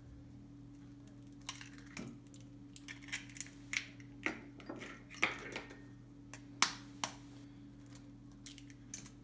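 Hen's eggs cracked on the rim of a stainless steel bowl and pulled apart by hand: scattered sharp taps and clicks of shell, the loudest about six and a half seconds in, over a faint steady hum.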